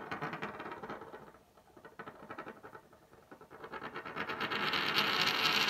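A coin spinning on a wooden tabletop, rattling in rapid clicks. The rattle dies down midway, then grows faster and louder over the last two seconds as the coin wobbles down toward settling flat.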